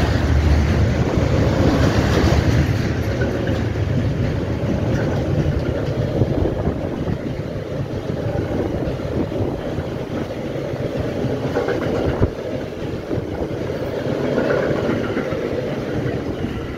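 Freight train of double-deck car-carrier wagons rolling past close by: a steady rumble of steel wheels on the rails, with a sharp knock about twelve seconds in.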